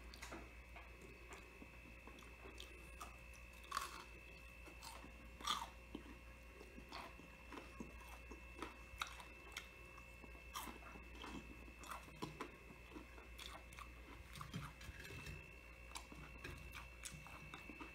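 A person chewing crispy breaded calamari rings with irregular crunches, a few louder ones about four and five and a half seconds in.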